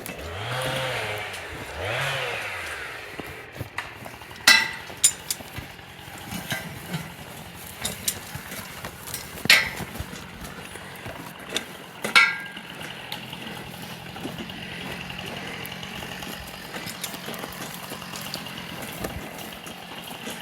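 A small engine rising and falling in pitch twice, then four sharp knocks spread over several seconds, and a small engine running steadily through the second half.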